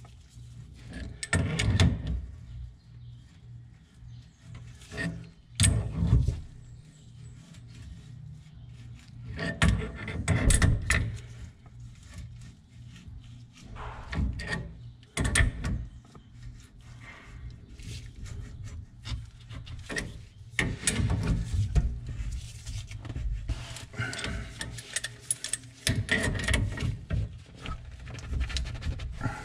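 A ratchet wrench is worked in strokes, turning a steel pipe tool in a brass wall fitting. It clicks, and metal rubs and grinds in bursts a few seconds apart.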